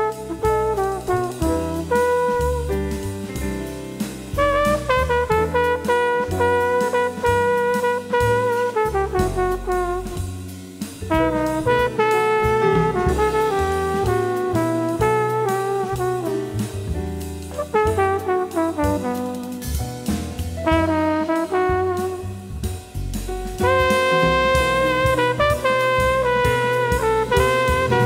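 Jazz big band playing an instrumental passage: trumpets, trombones and saxophones in ensemble phrases over piano, double bass and drums. The band comes in louder near the end.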